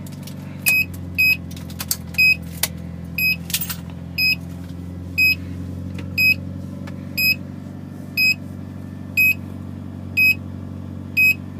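Turbocharged 4G63 inline-four of a Mitsubishi Lancer Evolution IX MR idling while a high electronic beep sounds about once a second, typical of a turbo timer counting down and keeping the engine running after the key is turned off. A few sharp clicks come in the first few seconds.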